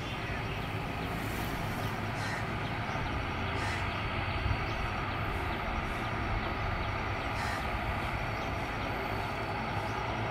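ATR 42-500's two Pratt & Whitney Canada PW127 turboprop engines running with propellers turning, at a steady level: a low drone with a thin whine above it, as the aircraft sits on the runway before its takeoff roll.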